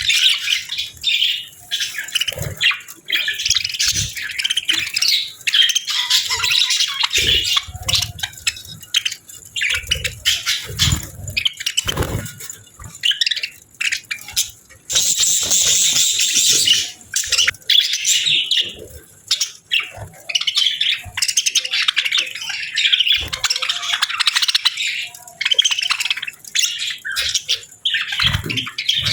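A flock of budgerigars chirping and chattering continuously, with a few low knocks among the calls.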